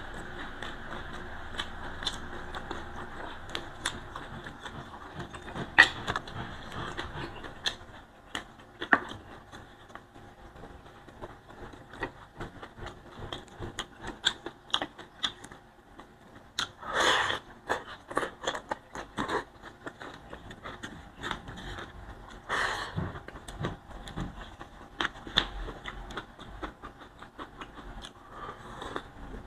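Close-up eating sounds: a steady stream of small wet clicks, crunches and lip smacks as boiled vegetable stems and leaves are chewed and handled, with two louder brief rushes of noise partway through. A steady background hiss fades out about eight seconds in.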